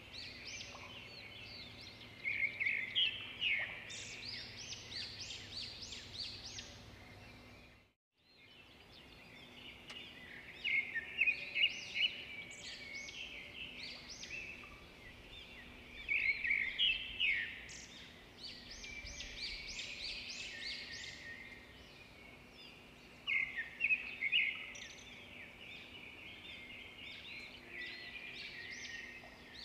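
Small birds chirping and twittering in quick flurries of high, short notes over a faint steady hum. The sound cuts out for a moment about eight seconds in.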